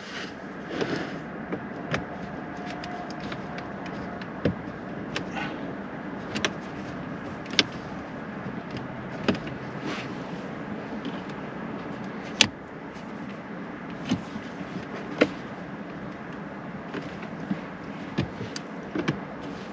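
Scattered sharp clicks and taps of a plastic interior trim piece being pushed and worked into its retaining clips, over a steady background hum.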